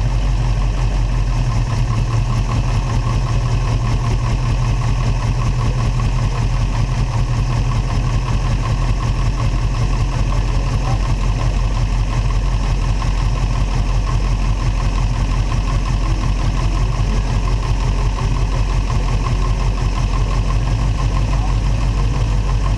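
Vintage car's engine running steadily at low speed, a deep even rumble with no revving, heard close up from the car's hood.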